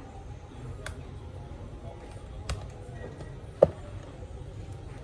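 Laptop parts and tools clicking and tapping as the laptop is put back together: three sharp clicks, the loudest a short knock about three and a half seconds in, over a steady low hum.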